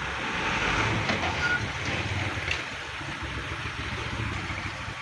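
Excavator engine running steadily as the machine works the ground, a little louder in the first two seconds.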